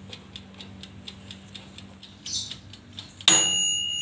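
Sharp toaster oven's wind-up mechanical timer ticking about four times a second. About three seconds in, its bell rings once with a single sustained ding that slowly fades, marking the end of the set time.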